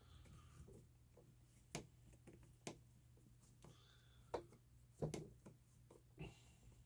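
Near silence with a few faint, separate clicks and taps: small hand tools and parts being handled while the front suspension of a Traxxas Slash RC truck is taken apart.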